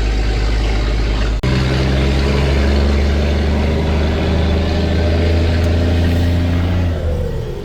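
Scania 4-series truck's diesel engine running at steady revs, heard from inside the cab, with a brief abrupt break about a second and a half in. The engine note falls near the end as the revs drop.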